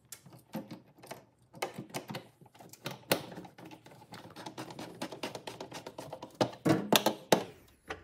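A hand screwdriver driving a screw back into the refrigerator's plastic light-and-control housing: a fast, irregular run of small clicks and taps, with a few louder clicks about six to seven seconds in.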